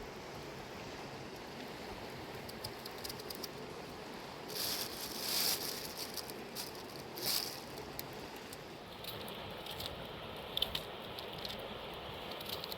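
Mountain river running steadily, with scattered small clicks and a few brief, sharper noisy bursts about five and seven seconds in.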